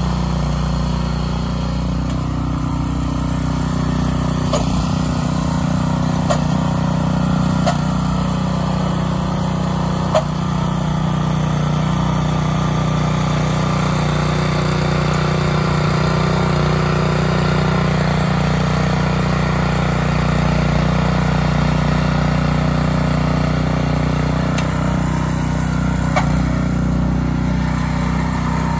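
Small single-cylinder gasoline engine of a rear-tine garden tiller running steadily under load while its tines churn soil, with a few brief clicks along the way.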